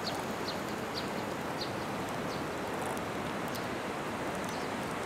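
A bird calling in short, high, falling chirps, about one or two a second at first and sparser later, over a steady rushing hiss.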